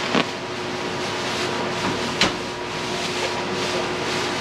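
Thin clear plastic laundry bag crinkling and rustling as folded clothes inside it are pressed and smoothed flat by hand, with a sharp crackle about two seconds in, over a steady machine hum.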